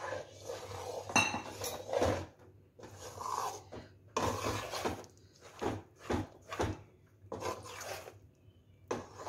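Steel slotted spatula stirring and scraping a thick besan (gram flour), sugar-syrup and ghee burfi mixture around a steel kadhai: a run of irregular metal-on-metal scraping strokes, roughly one or two a second.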